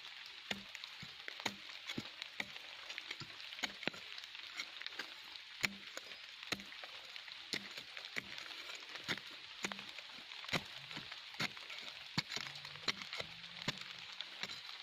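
Short-handled hoe chopping and scraping into dry, gravelly earth: irregular sharp strikes, about one or two a second, over a steady hiss.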